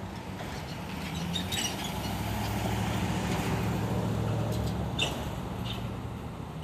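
Passing car traffic at a road intersection: a steady hum of engines and tyres that swells toward the middle as cars drive by. A few short high chirps sound about a second and a half in and again near five seconds.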